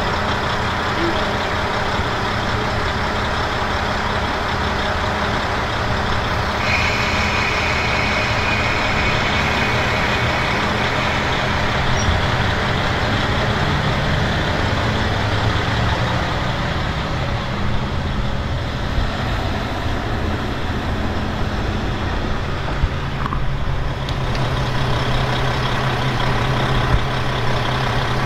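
KiHa 40 diesel railcar under way, heard from inside the car: the diesel engine running under the steady rumble of wheels on rail. A thin high whine for a few seconds about seven seconds in, and a few short clicks in the second half.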